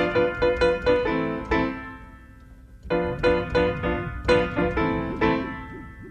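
Background music: a keyboard melody of quick struck notes, breaking off for about a second partway through before resuming.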